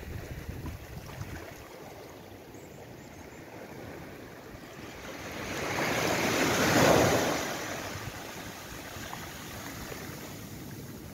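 Small sea waves breaking and washing up a sandy beach; one wave builds to a louder rush about two-thirds of the way through, then fades.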